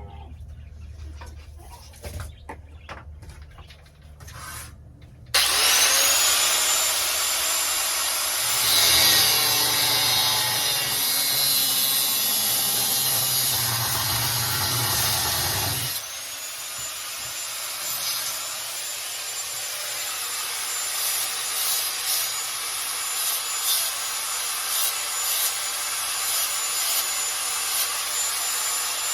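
Angle grinder cutting metal: about five seconds in the motor starts with a rising whine and the disc bites into the metal with loud, heavy grinding. About two-thirds of the way through the load eases, the whine climbs back up, and lighter, uneven grinding continues.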